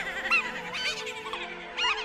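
Eerie music with a steady low drone, overlaid by many overlapping warbling, honk-like high-pitched squawks. The loudest come about a third of a second in and again near the end.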